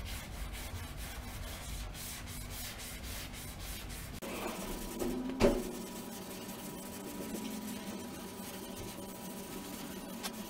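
Sandpaper on a hand sanding block rubbed back and forth over body filler on a car's side panel, in repeated scratchy strokes. A single sharp knock about five seconds in.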